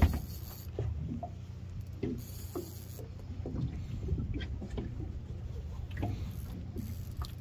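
Small boat on open water, with light irregular splashing and knocking of water against the hull over a steady low hum.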